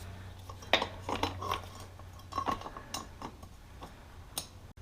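Metal tools and parts clinking: about six separate sharp clinks, some with a brief ring, over a steady low hum.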